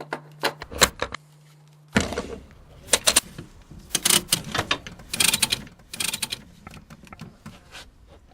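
Four-point wheelchair tie-down straps being fastened: metal hooks and buckles clicking and rattling in quick irregular bursts, over a low steady hum for the first two seconds.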